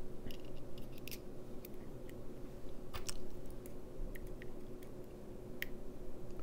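Faint, scattered small ticks and light scrapes of a tiny airflow pin being handled and fitted into a stainless-steel mouth-to-lung RTA (Ulton Edge MTL), over a steady low hum.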